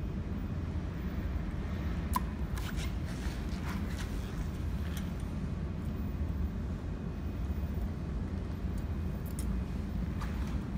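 A steady low hum, with a few light clicks and taps as a small screw and the microscope mount of a YAG laser welding machine are handled. The sharpest click comes about two seconds in, and a couple more come near the end.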